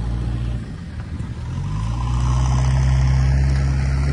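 Mahindra Thar 4x4's engine running at a steady speed. It eases off about half a second in, then revs up and holds at a higher, louder steady speed.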